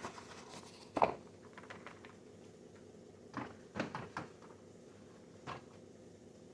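Scattered knocks and clunks of items being handled and set down inside a refrigerator, the loudest about a second in, with a few more in the middle, over a faint steady hum.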